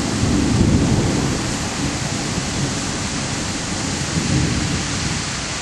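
Thunderstorm: steady rain hissing under a low rumble of thunder that eases off after about a second and a half.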